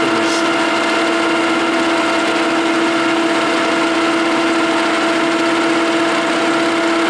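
1956 Herbert No. 4 capstan lathe running steadily, a constant hum at one pitch from its motor and drive, while a Coventry die head feeds along the spinning bar to cut a thread.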